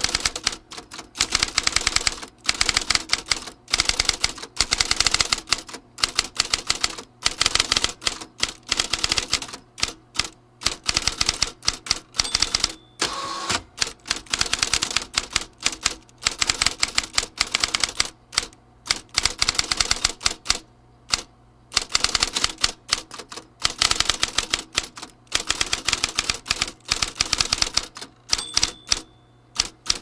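Mechanical typewriter being typed on: runs of rapid key strikes broken by short pauses.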